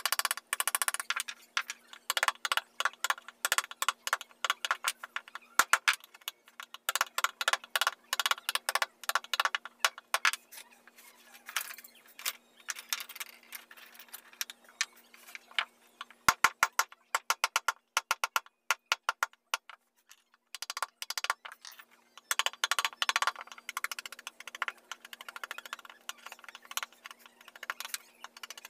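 Mallet tapping a wood carving chisel into a wooden panel: runs of rapid, light taps broken by short pauses, with a longer break about two-thirds of the way through.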